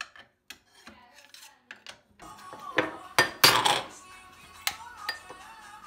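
Dishes and cutlery clinking and clattering, with background music coming in about two seconds in; the loudest clatter falls near the middle.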